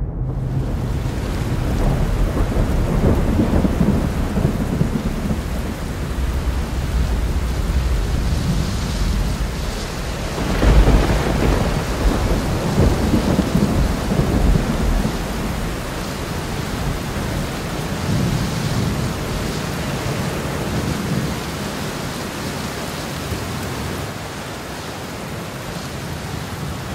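Thunderstorm: steady rain with low rolling rumbles of thunder, the loudest thunder coming about ten seconds in.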